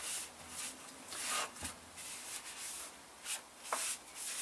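A hand-held pad rubbed in short, irregular strokes over a primed plastic motorcycle fairing panel.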